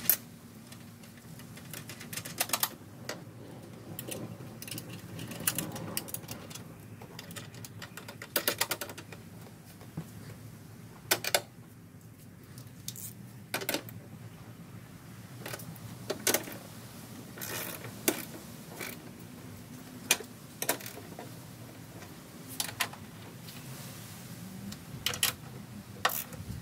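Hand ratchet clicking in short quick runs, with scattered knocks of tools against metal parts, tightening the nuts of an oil catch can's mounting bracket.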